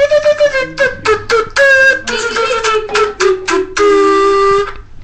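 A child singing a wordless "la la la" tune: a run of short notes stepping down in pitch, ending with one note held for about a second near the end.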